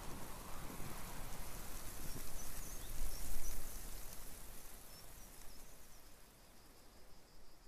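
Coastal ambience: a steady wash of sea waves with small bird chirps over it, swelling about three seconds in and then fading down, with a quick run of high chirps near the end.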